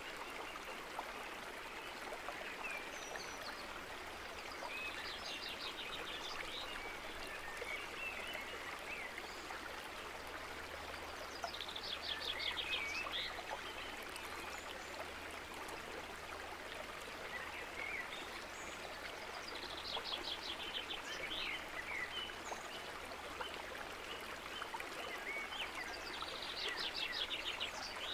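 A steady rush like running water, with a small songbird singing a fast trilled phrase and short chirps four times, about every seven to eight seconds.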